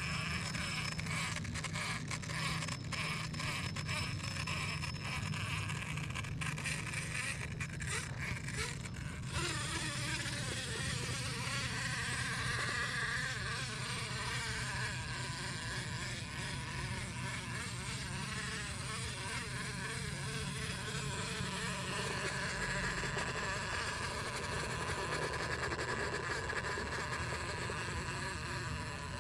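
Electric drivetrain of an Axial RBX10 Ryft RC rock bouncer, its brushless motor and gears whining as the truck crawls over sand and rock. The whine wavers up and down with the throttle, with many sharp clicks in the first third.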